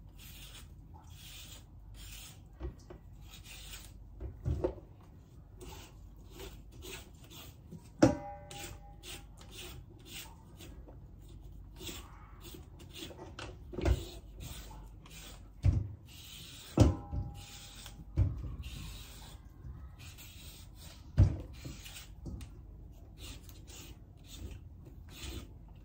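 Knife cutting radish: a quick, steady run of strokes, broken by several louder knocks and two short clinks.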